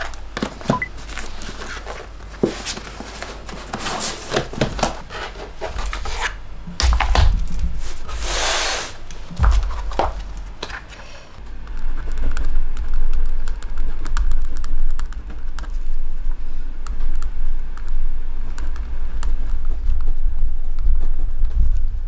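Notebooks being picked up and handled on a desk: a run of knocks and clicks, with a longer paper rustle about eight seconds in. Then a ballpoint pen writing on a spiral-bound A4 notebook, light scratching over low thuds.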